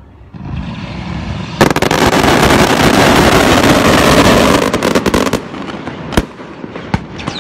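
Daytime coloured-smoke fireworks going off: a rising rush of noise, then about a second and a half in a sudden, very loud barrage of rapid bangs lasting about four seconds, followed by a few separate sharp bangs near the end.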